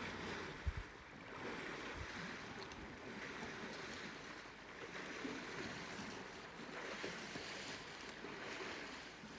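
Steady outdoor background hiss that swells and fades, with a single sharp low thump just under a second in.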